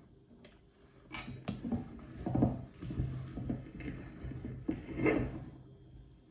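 Meat grinder running with a low steady hum, over irregular sharp clacks and crunches of hard pebble chocolates being fed through it.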